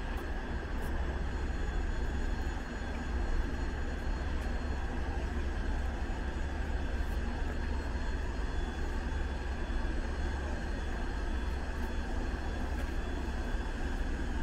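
EP2K electric locomotive starting an express passenger train slowly away: a steady hum and rush from its motors and cooling blowers over a deep rumble.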